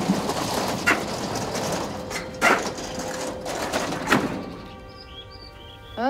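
Green corrugated metal roller shutter being hauled up, rattling continuously, with three sharp clanks along the way. It stops about four seconds in, and soft music comes in near the end.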